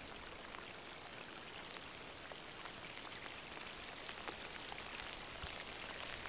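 Steady outdoor ambience: a soft, even hiss with many faint, scattered ticks.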